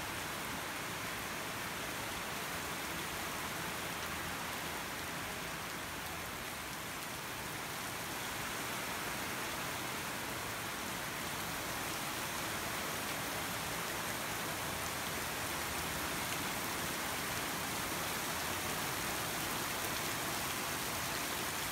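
Rain falling steadily on a garden lawn, leaves and puddled stepping stones, growing a little louder in the second half.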